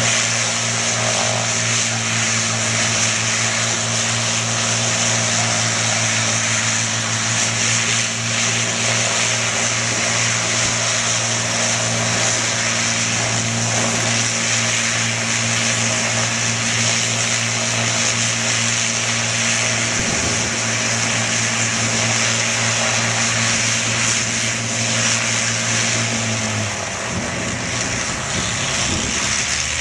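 Avro Lancaster bomber's four Rolls-Royce Merlin V12 engines running steadily on the ground, propellers turning; near the end the engine note shifts and wavers.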